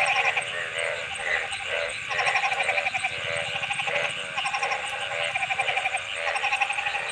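Frogs calling: rapid pulsed croaks repeated about once a second, with several calls overlapping.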